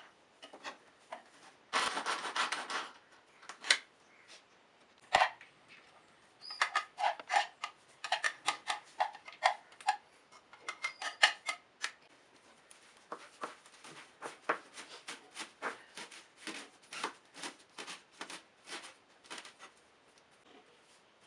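A knife chopping vegetables on a plastic cutting board: a short rasping rush about two seconds in, then a run of sharp taps, settling into steady chopping of spinach leaves at about two to three strokes a second.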